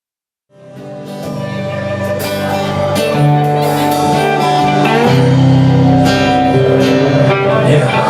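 Live rock band music with guitar to the fore, fading in about half a second in and swelling up to full loudness over the next second or so.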